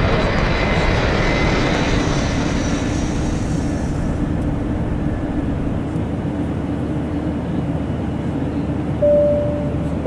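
Steady roar of a Boeing 737 airliner in cruise, heard from inside the passenger cabin, with a low hum beneath the rushing noise. Near the end there are two short clear tones about a second apart, the second lower.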